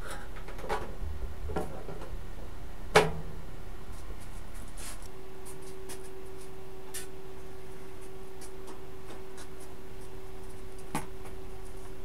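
Scattered light clicks and taps with one sharper knock about three seconds in, over a steady hum; a steady tone joins the hum about five seconds in.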